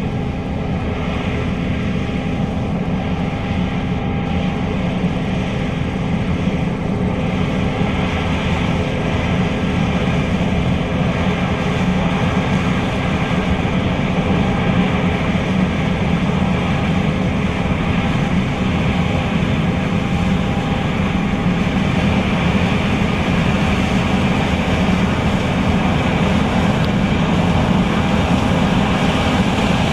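John Deere S660 combine running steadily under load while harvesting soybeans: a continuous engine and machinery drone that grows a little louder as it goes.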